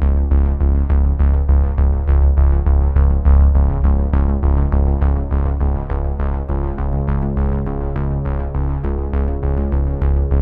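Background music: a steady run of notes, about three or four a second, over a held bass.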